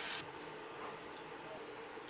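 A loud kitchen hiss cuts off suddenly a fraction of a second in. After it there is quiet room tone with a few faint, light clicks.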